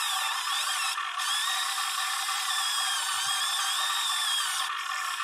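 Electric gear motors of an RC Huina 580 excavator whining as the machine works, the pitch wavering up and down with the load. The whine thins out briefly about a second in and again near the end.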